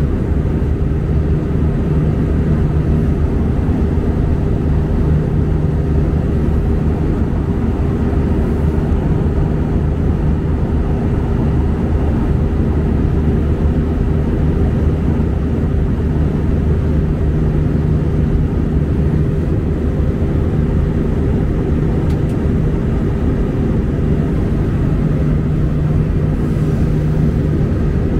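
Airbus A319 cabin noise: the steady, unchanging drone of the jet engines and rushing air, with a low hum holding level underneath.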